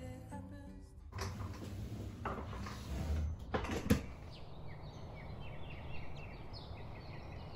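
Household handling noises: a few sharp knocks and clatter, the loudest about four seconds in, like a cupboard door or objects being put down. These are followed by a series of short, high, rising chirps.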